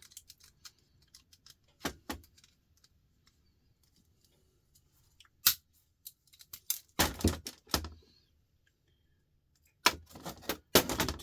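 Loose metal parts and tools clinking and rattling while an appliance is taken apart for scrap: single sharp clinks with quiet gaps, then bursts of jangling, the loudest near the end.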